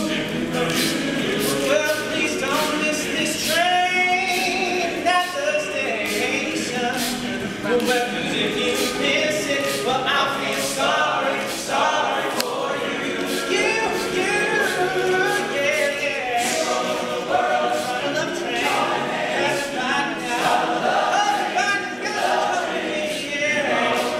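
Male a cappella group singing, a soloist leading over the group's backing vocals, with sharp clicks marking a steady beat.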